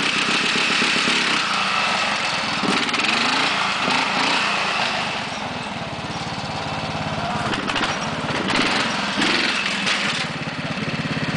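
Riding lawn mower engine running as it is driven, its pitch shifting up and down; it eases off around the middle and picks up again near the end.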